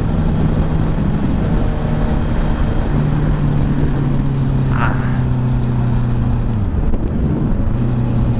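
Honda CBR650F inline-four engine running at a steady cruise, its note stepping down a little twice as it eases off, under a heavy rush of storm wind over the microphone.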